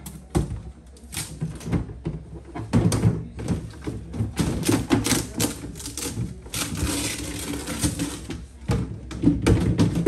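Clear plastic refrigerator drawer and fittings clicking and knocking as they are handled and an ice cube box is lifted out, with the crinkle of its plastic wrapping about two-thirds of the way through.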